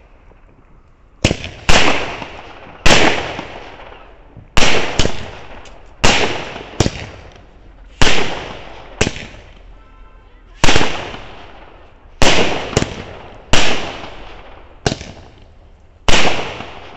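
Diwali fireworks going off: a run of about fifteen sharp bangs, roughly one a second and some in quick pairs, each trailing off in echo.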